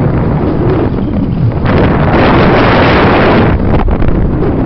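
Strong wind buffeting a phone microphone, a loud rumbling rush that swells louder for a couple of seconds in the middle.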